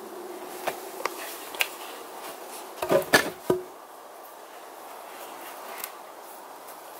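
A few light footsteps, then a cluster of loud wooden knocks about three seconds in as a round red alder log is set down across the foundation logs and concrete pier blocks.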